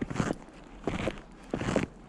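Snowshoe footsteps crunching in snow, three even steps a little under a second apart.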